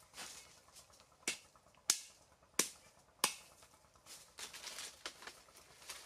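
Four sharp wooden clicks about two-thirds of a second apart as thin bamboo sticks are handled and knocked together, followed by soft rustling in dry leaves near the end.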